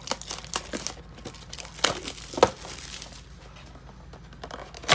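Trading-card blaster box being opened by hand: its wrapping crinkling and tearing in irregular crackles, with two louder snaps about two seconds in.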